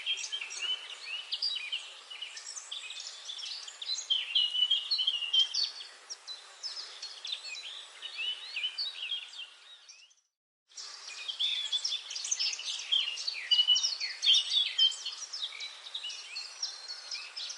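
A dense chorus of many songbirds chirping and calling over one another. It cuts off abruptly to dead silence for under a second, about ten seconds in, then resumes.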